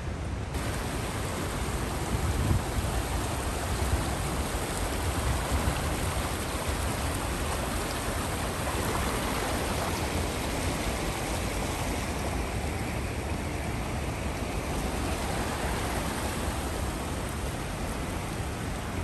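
A creek rushing steadily over rocks, a constant watery roar.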